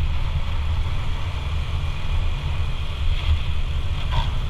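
Automatic scooter riding along with its engine running, under a steady, gusty rumble of wind on the microphone. A brief higher-pitched sound comes about four seconds in.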